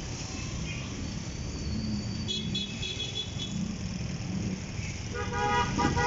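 Steady low rumble of road traffic, with a short run of high beeps a couple of seconds in and a vehicle horn sounding in the last second.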